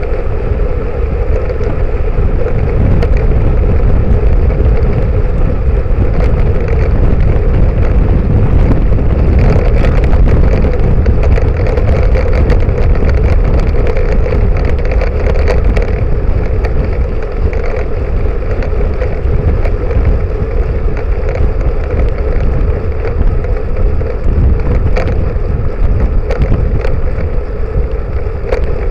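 Road and wind noise from a rear-facing camera on a moving road bicycle: a loud, steady rumble with wind buffeting the microphone, a constant hum, and scattered small rattles and clicks.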